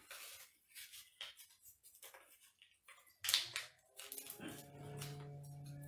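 A folded paper slip crinkling and rustling as it is unfolded by hand, in quick irregular crackles with the loudest about three seconds in. From about four seconds in, steady held musical tones come in under the rustling.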